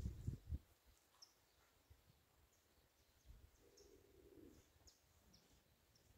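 Near silence, with faint scattered high chirps of small birds and a few low thumps in the first half-second.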